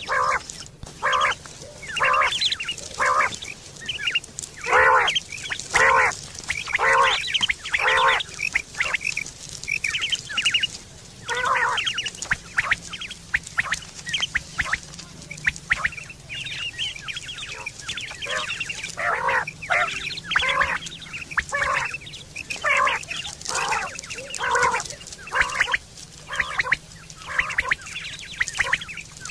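Common quail calls repeated over and over, about one short call a second, with some overlapping and a few higher-pitched calls between.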